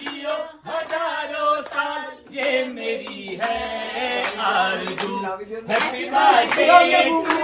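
A group of family voices, men and women, singing a Hindi birthday song together in short phrases, with hand claps.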